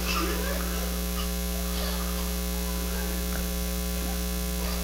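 Steady electrical mains hum: a low, unchanging buzz with evenly spaced overtones.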